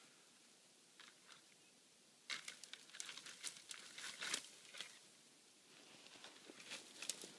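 Soft rustling and crackling close to the microphone, in irregular bursts that begin a little over two seconds in and come again near the end.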